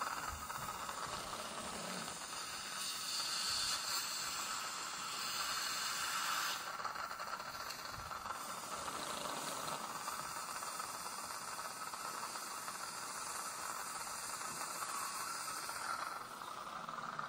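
Steady hiss of surgical suction and saline irrigation while a slow-turning implant drill from the OneCas sinus kit (about 500 rpm) cuts through the maxillary sinus floor bone, not yet broken through.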